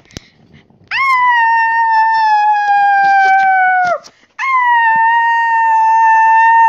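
Dog howling: two long, steady howls, the first starting about a second in and sinking slightly in pitch before it breaks off, the second starting just after and held level.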